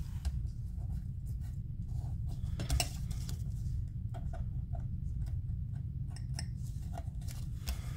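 Light scattered clicks and taps from handling paper craft pieces and tools on a work table, over a steady low hum.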